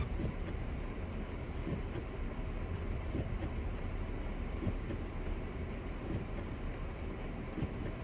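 Steady low rumble of a car driving slowly on a snow-covered road, heard from inside the cabin.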